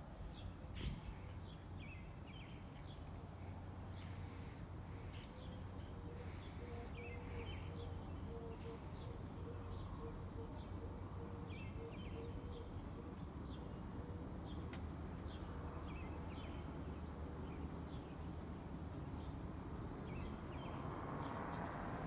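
Harbor Breeze 52-inch Classic Style ceiling fan running steadily with a low, even hum, while birds chirp now and then.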